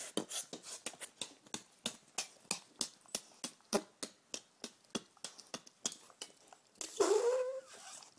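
Beatboxing: a steady run of quick mouth clicks and lip pops, about three to four a second. About seven seconds in, a dog gives a brief, louder whine that rises in pitch.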